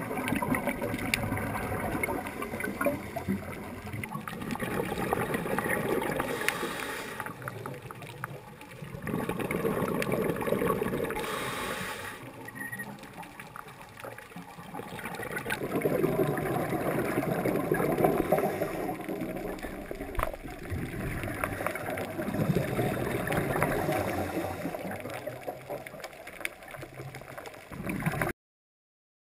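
Scuba regulator breathing heard underwater: exhaled bubbles gurgle in slow surges every few seconds, between quieter hissing stretches. The sound stops suddenly near the end.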